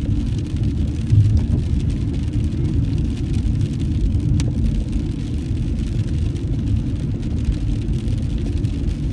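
Steady low rumble of a car driving, tyre and engine noise heard from inside the cabin on a rain-wet road. A single faint click about four seconds in.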